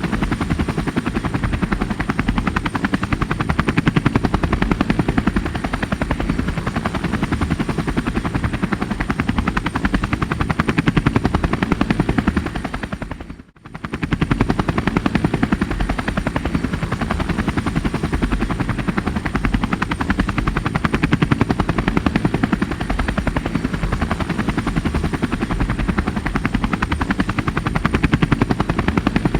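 Helicopter running steadily, its rotor blades making a rapid, even chop. The sound drops out briefly about halfway through, then returns unchanged.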